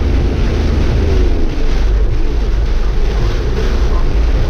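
A vehicle moving along a wet road in heavy rain: a steady low wind rumble on the microphone over an even hiss of rain and tyres on wet tarmac.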